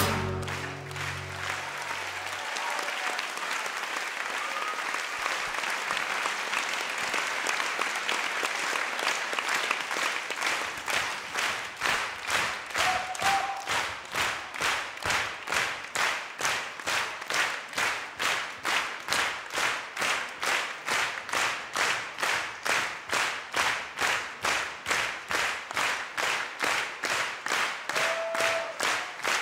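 Audience applauding as the last notes of the dance music die away. About ten seconds in, the applause turns into steady rhythmic clapping in unison, about two to three claps a second.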